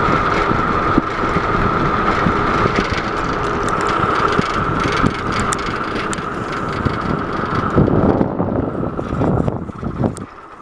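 Wind rushing over the microphone and tyres humming on asphalt as a bicycle is ridden along a paved road, with a steady high hum under it. About eight seconds in the rush thins out, and it drops away near the end.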